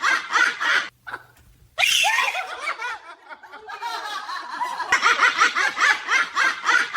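Hard, repeated laughing in quick rhythmic bursts. The laughter breaks off about a second in and resumes near two seconds with high, falling squealing tones before it settles back into rapid bursts.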